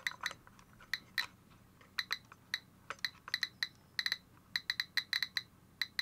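GQ GMC-320 Plus Geiger counter clicking at an irregular rate of about four short, high beeps a second. Each click is a detected particle, here from a smoke detector's americium-241 source held near it.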